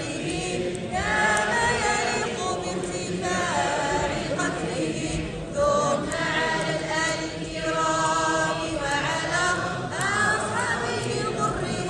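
A group of voices chanting an Arabic religious song together, the melody rising and falling in long held phrases.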